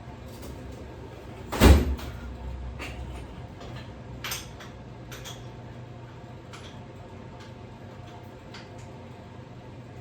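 A single loud bang a little under two seconds in, followed by a smaller knock and scattered light clicks and taps, over a steady low hum.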